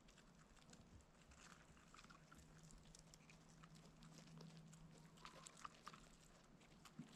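Faint farmyard poultry sounds: scattered soft clicks and taps, with a low steady hum in the middle few seconds.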